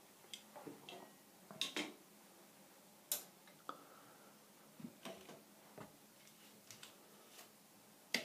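Faint, scattered light clicks and small knocks, about a dozen at uneven intervals, from small objects being handled, with one sharper click near the end.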